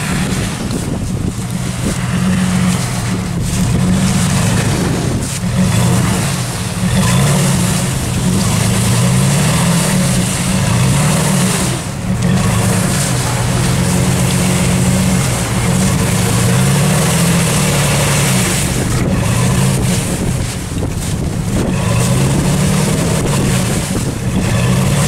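Pickup truck engine revving up and falling back again and again, while its rear tyres spin and slip on packed snow, trying to climb a slick hill.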